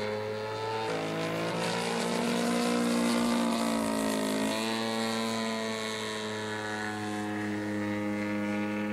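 The OS 61cc two-stroke petrol engine of a Phoenix P-51D Mustang RC model, turning a 22x10 propeller in flight. Its note shifts about a second in, swells up and back down over the next few seconds, then settles steady again.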